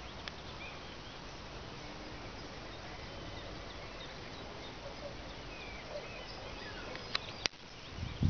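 Outdoor ambience with faint chirps of distant birds. There is a soft click early on and two sharp clicks about seven seconds in.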